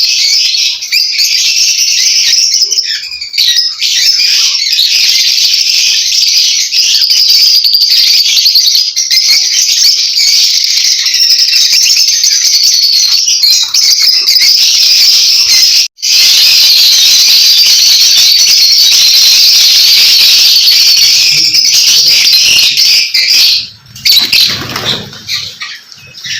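A flock of lovebirds chattering and chirping together in a dense, continuous high-pitched chatter. It cuts out for an instant about two-thirds of the way through and thins out and drops in level near the end.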